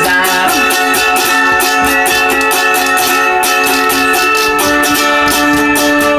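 Folk-punk song: strummed string instruments playing held chords over a steady, evenly spaced beat.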